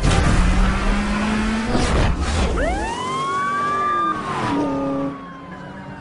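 Racing car noise with a rising engine tone, then a police siren winds up steeply about two and a half seconds in and slowly falls away.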